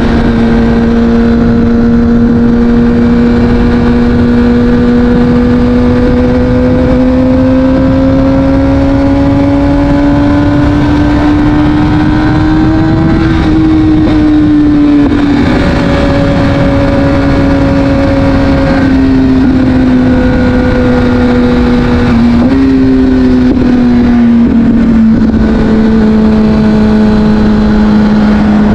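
Kawasaki Ninja ZX-6R inline-four engine running through an Akrapovic exhaust while riding at steady revs over a haze of wind noise. The engine note climbs slowly through the first half, then eases back down, with a few brief dips and jumps in pitch in the second half.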